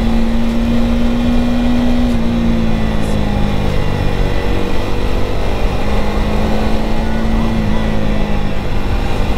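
KTM Duke 250 single-cylinder engine running while riding, under heavy wind rush. Its pitch drops about two seconds in and comes back up around six seconds.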